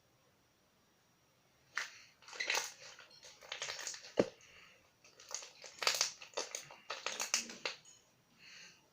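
Slime being squeezed and worked by hand, giving clusters of crackling pops and clicks from about two seconds in until near the end, with one sharp pop in the middle.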